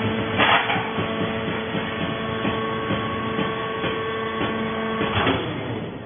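Vertical hydraulic baler running: its power unit gives a steady hum with held tones as the ram presses coconut fibre down. There is a clunk about half a second in, and another about five seconds in, where the steady tones stop.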